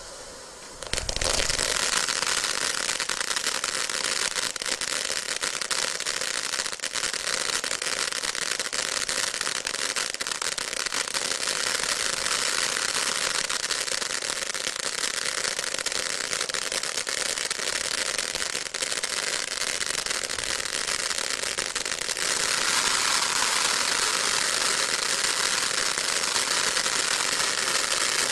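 Aurora Borealis ground firework fountain spraying sparks with a dense, steady hiss and crackle. It bursts into full spray about a second in and gets louder and brighter about three-quarters of the way through, as the effect changes.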